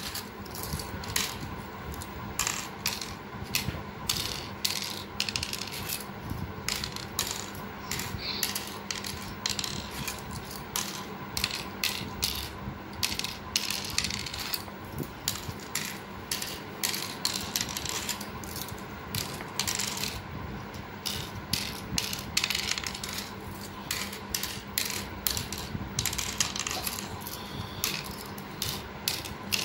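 Cowrie shells being sown one at a time into the cups of a pallanguzhi board, each landing with a small sharp click, in a quick irregular run of a few clicks a second.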